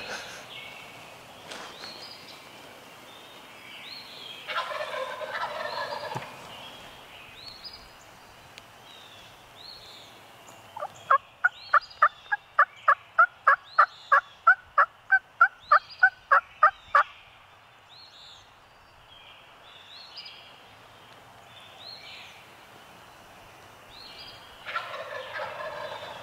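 Wild turkey gobbles, one about five seconds in and another near the end. Between them comes a long run of about twenty evenly spaced hen-turkey yelps, roughly three a second, the loudest sound. Small songbird chirps recur throughout.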